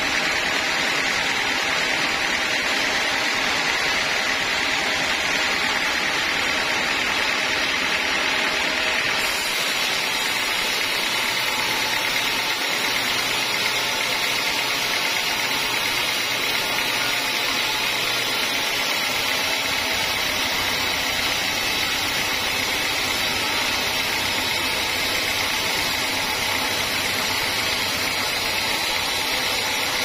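Band sawmill running steadily, its blade cutting through a teak log with a bright, steady sawing noise over the machine's drone. About a third of the way in the sound changes abruptly, and a steadier machine drone carries on.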